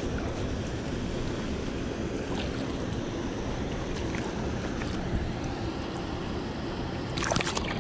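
Steady rush of shallow water running over a concrete spillway, with a few light splashes from a hooked bass being pulled through the shallows. About seven seconds in come louder splashes from feet wading through the water.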